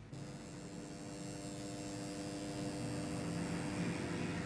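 Steady hum with several held tones over a faint hiss, slowly growing louder.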